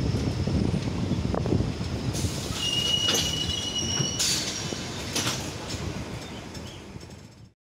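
MEMU electric multiple-unit train running over yard tracks, heard from a coach doorway: a steady low rumble and rattle of wheels on rail, with a high thin wheel squeal for about a second and a half partway through. The sound fades and then cuts off near the end.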